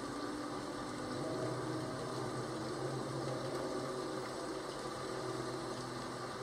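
Steady rain-and-thunderstorm ambience: an even hiss of rain over a low rumble that swells slightly about a second in.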